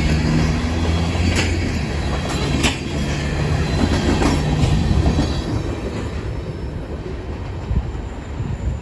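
A train rolling past: a steady low drone with sharp wheel clicks every second or so, fading away over the last few seconds.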